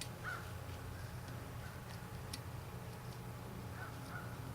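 A few faint small metal clicks as a retaining nut is started by hand on the turbo pedestal's actuator piston shaft, over a steady low hum.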